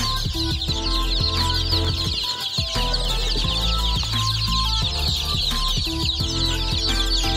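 A large flock of young chicks peeping, many high-pitched calls overlapping into a continuous chatter.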